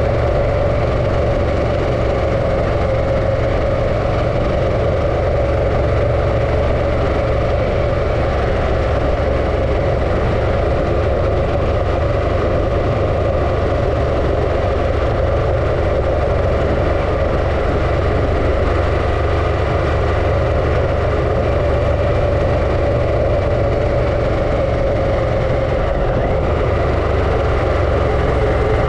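Harley-Davidson Pan America's Revolution Max 1250 V-twin running at a steady, unchanging pitch as the motorcycle is ridden, with a constant low rumble underneath.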